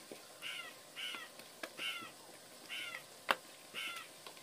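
A crow cawing five times, each caw a short call falling in pitch, with a few sharp clicks between them, the loudest about three seconds in.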